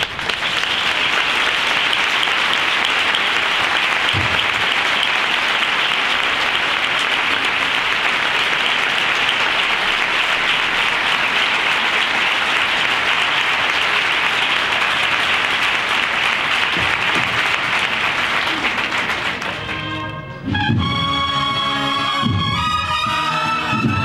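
A large crowd applauding steadily. About twenty seconds in, the applause gives way to a brass band striking up a march, with drum beats underneath.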